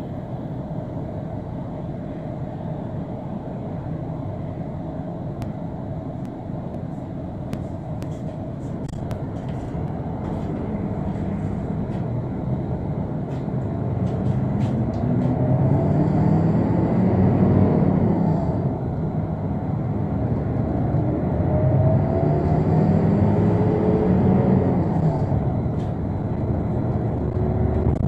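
Transjakarta bus heard from inside the cabin: a steady engine and road rumble, with a scatter of light clicks in the first third. The engine's pitch rises twice, once in the middle and again near the end, as the bus accelerates.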